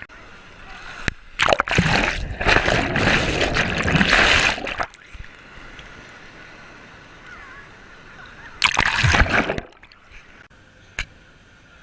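Water splashing in two loud bursts, one lasting about three seconds starting a second and a half in, and a shorter one near the end.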